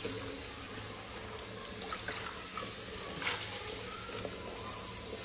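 Kitchen tap water running steadily into a plastic bucket of sliced potatoes as they are rinsed by hand to wash off the starch, with a few small splashes.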